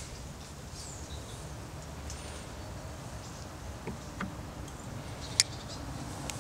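Glass beer bottle set down on a slatted wooden table: two soft knocks about four seconds in, then a single sharp click about a second later, the loudest sound. Faint high chirps and a steady low background noise lie behind them.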